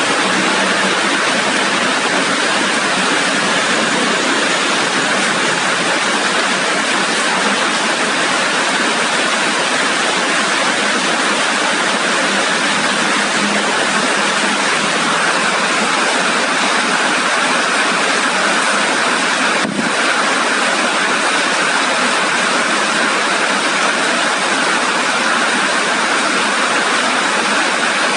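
Steady heavy rain falling, an even loud hiss with no change in strength, broken only by one brief tick about twenty seconds in.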